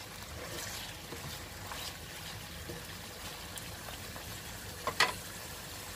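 Boneless chicken slices frying in oil with chopped garlic and ginger in a nonstick wok, giving a steady soft sizzling bubble. A single sharp knock about five seconds in.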